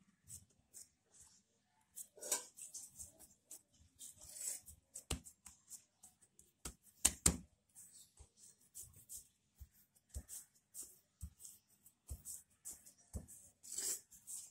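Hands pressing and working a slab of laminated dough on a floured work surface: scattered soft thumps and short rustles, with two sharper knocks about seven seconds in.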